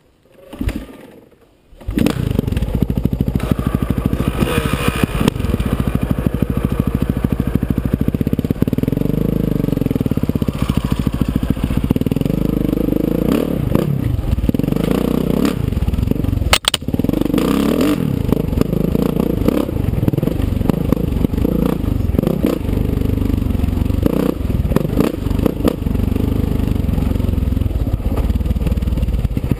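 Kawasaki KX450F four-stroke single-cylinder dirt bike engine running hard on a trail ride, revs rising and falling with the throttle, with tyres scraping and clattering over dirt and rock. It starts loud about two seconds in, after a nearly quiet start. A little past halfway comes a sharp click and a momentary drop.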